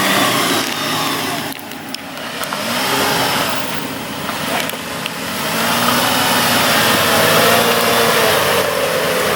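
Off-road 4x4's engine revving hard under load on a muddy climb, its pitch rising and falling several times and climbing again near the end.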